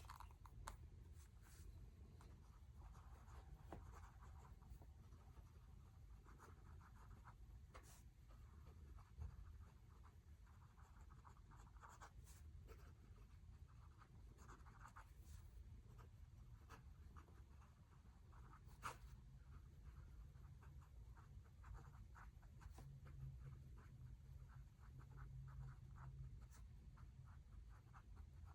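Faint scratching of a pen writing on paper, in irregular strokes with a few light taps, over a low steady room hum.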